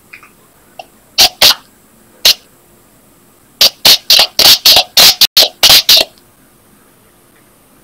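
Short, loud, breathy puffs close to the microphone from a person. There are a few scattered ones, then a quick run of about a dozen in the middle before they stop.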